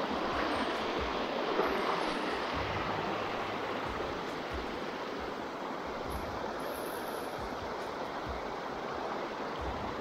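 Water rushing down a narrow stone-lined channel, a steady hiss that grows a little fainter after the first few seconds.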